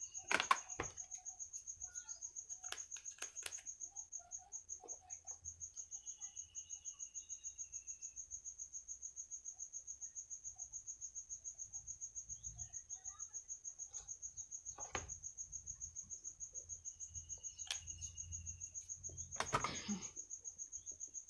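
A cricket chirping, one high note repeated in a rapid, even pulse throughout, with a few light clicks and knocks, the loudest near the end.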